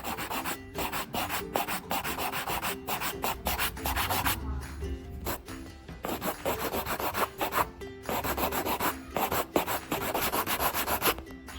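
Nail file rasping across fingernails in quick, rapid back-and-forth strokes, in runs broken by short pauses.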